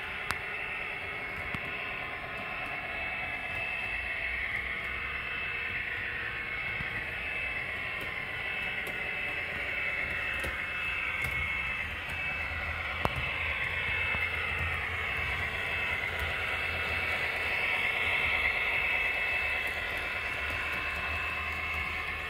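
HO-scale model diesel locomotive running on the layout, its motor whine sliding up and down in pitch over a low hum, with an occasional faint click.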